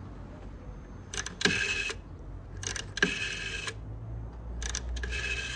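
Rotary dial of a black desk telephone being dialled, three digits: each turn gives a click and then a short whir as the dial spins back.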